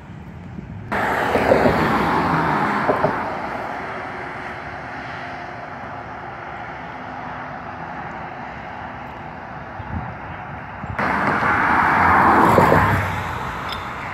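Road traffic passing close by, with two cars going past loudly: one about a second in that fades over a few seconds, and another near the end.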